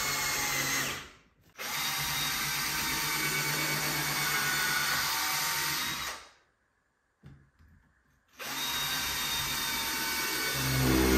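Cordless drill driving wood screws into a pine timber frame. The motor whines in three runs: a short one, a longer one of about four and a half seconds, then after a pause of about two seconds it starts again.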